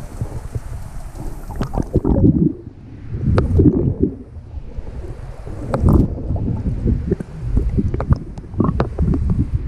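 Muffled underwater rush of water and bubbles around a camera held by a swimmer, surging several times as she strokes, with short crackles of bubbles over a low rumble.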